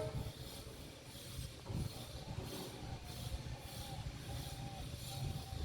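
WDP4D diesel-electric locomotive's EMD 16-cylinder two-stroke engine running with a low rumble as the train pulls out, just after its horn cuts off. A faint hiss pulses about twice a second over the rumble.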